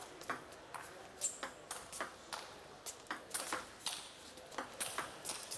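Table tennis rally: sharp, short clicks, about two to three a second, as the celluloid ball strikes the table and the players' rubber-faced bats back and forth.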